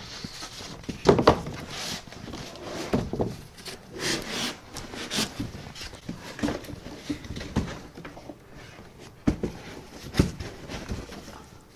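Irregular knocks, thuds and scraping of hard parts and packaging being handled and set down while a 3D printer is unpacked.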